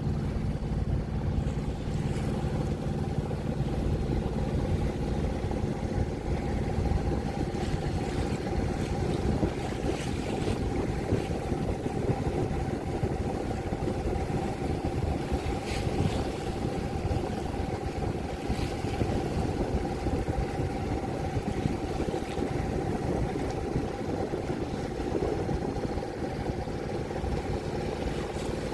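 An Ohlson 8:8 sailing yacht's inboard engine running steadily under way, a constant drone with water and wind noise over it.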